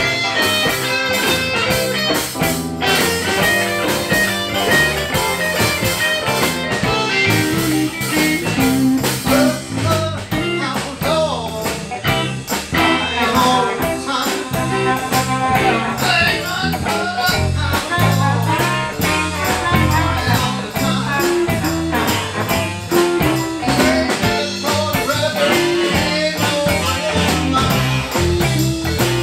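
Live blues band playing a shuffle: electric guitars, bass and drum kit, with harmonica played over the top.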